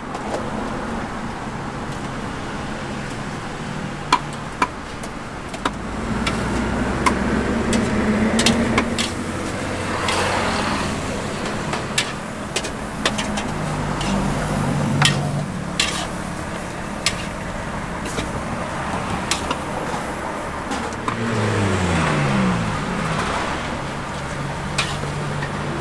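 Street traffic: motor vehicles passing one after another, their engines swelling and fading, one dropping in pitch late on as it goes by. Scattered sharp clicks and clinks sound throughout.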